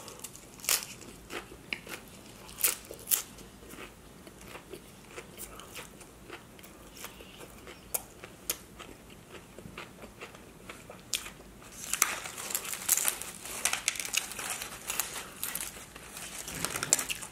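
Close-up crunching and chewing of a mouthful of Dorito nacho chips loaded with toppings, with sharp crunches every second or so. About twelve seconds in it turns to denser crackling as the chips on the tray are picked through by hand.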